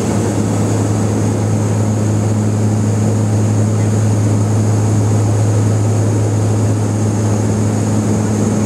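Cabin drone of a BAe Jetstream 32's twin Garrett TPE331 turboprops in flight: a steady deep propeller hum with a fainter tone an octave above it and a high hiss.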